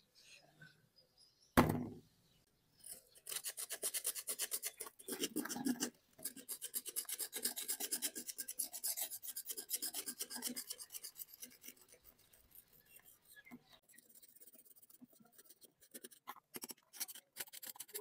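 The tip of a small screwdriver scraping crusted rust and dirt off an old steel scissor blade in rapid short strokes, quieter after about ten seconds. A sharp knock comes about a second and a half in, as the scissors are laid down on the work surface.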